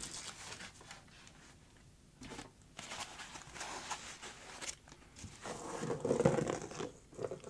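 Polystyrene foam packing and a cardboard box scraping and rubbing against each other as a foam-packed unit is lifted out and the empty box is handled, in irregular stretches of handling noise.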